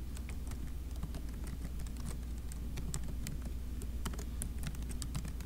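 Typing on a computer keyboard: quick, irregular key clicks, several a second, over a steady low hum.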